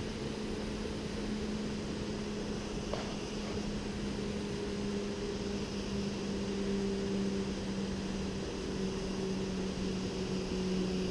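Bow-mounted electric trolling motor running steadily, a low hum whose pitch sags slightly, over a haze of water and wind noise. A faint click about three seconds in.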